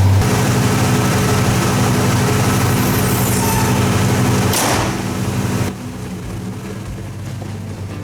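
Ford F-150 engine idling smoothly with its new belt tensioner, free of the earlier pulley noise. There is a brief rustle a little past halfway, and the engine grows quieter about two-thirds of the way in.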